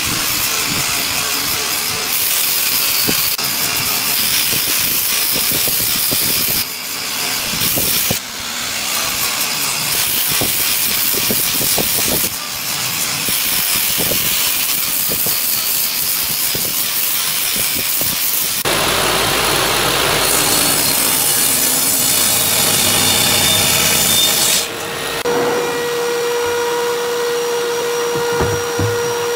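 Electric angle grinder with a sanding disc sanding across a wooden inlay panel: a steady high whir mixed with scratchy rubbing of abrasive on wood, broken by a few abrupt changes. Near the end it gives way to a steadier, humming machine drone.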